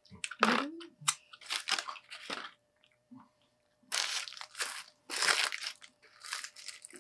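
Crunching bites and chewing of fast food, mixed with the rustle of a paper sandwich wrapper being handled and unfolded, in several separate bursts.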